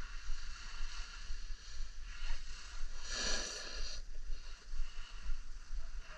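Skis hissing and scraping over soft snow through a series of turns, with one louder, longer scrape about three seconds in.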